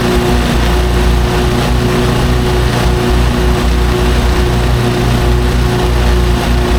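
Lawn mower engine running steadily under the mowing load, a constant even drone with no change in pitch.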